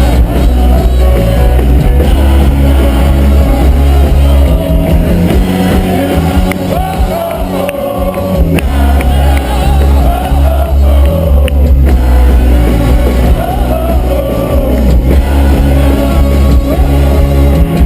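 Loud live music from a festival stage's sound system, recorded close enough that the heavy bass dominates, with a wavering melody line above it. The bass drops out about six seconds in and comes back a few seconds later.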